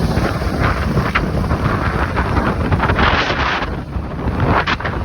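Loud wind buffeting the microphone while riding a scooter, a steady rush of air with gusty swells.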